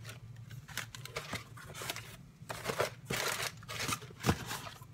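Plastic bubble wrap crinkling and rustling in irregular bursts as it is handled and pulled out of a cardboard box, with a light knock about four seconds in.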